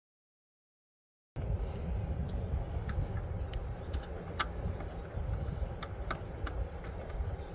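A short stretch of dead silence, then a steady low outdoor rumble with scattered light clicks at irregular intervals, one sharper than the rest about halfway through.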